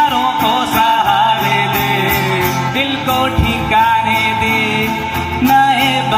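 Music: a Hindi song's instrumental backing, a gliding melody over a steady beat and plucked strings.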